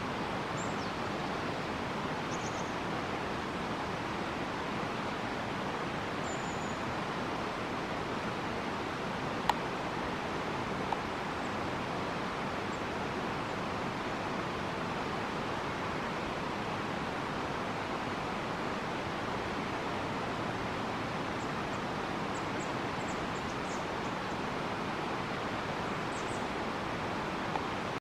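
A steady, even hiss of outdoor background noise, with a few faint, very high, thin chirps of a small bird scattered through it and a quick run of them near the end. Two sharp clicks stand out briefly a third of the way in.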